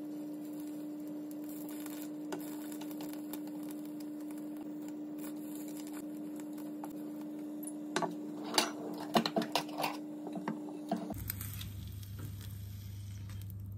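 Steady hum of an induction hob under a rectangular tamagoyaki pan, with a faint sizzle from the cooking egg. About eight seconds in comes a run of light taps and clinks from wooden chopsticks and the pan, lasting a few seconds; near the end the hum drops to a lower pitch.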